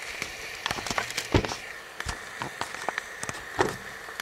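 A dozen or so sharp light clicks and knocks at irregular intervals, over a faint steady hiss.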